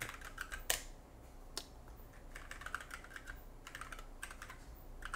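Typing on a computer keyboard: irregular clusters of faint key clicks.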